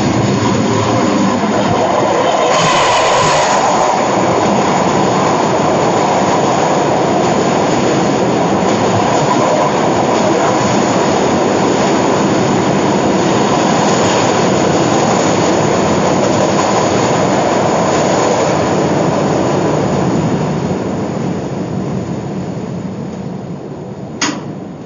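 Diesel-hauled passenger train crossing a steel truss railway bridge at close range: a loud, steady rumble and rattle of wheels on the rails and bridge deck as the locomotive and coaches go past. The noise fades over the last few seconds as the train runs off, with a single sharp click near the end.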